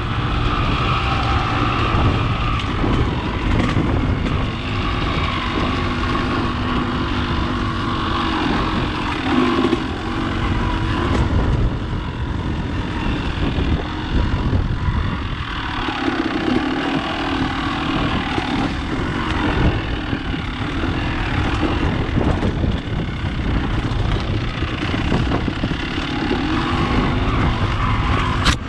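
Dirt bike engine running at trail speed, its pitch rising and falling with the throttle as the bike works over rough ground. A sharp click comes near the end.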